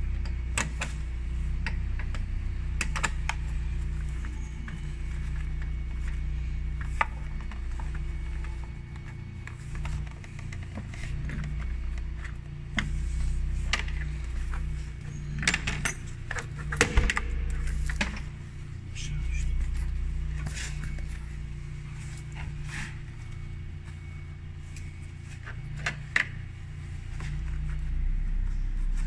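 Scattered clicks, knocks and light clinks from hands and tools working on a car's wiper cowl and bulkhead area, over a steady low hum.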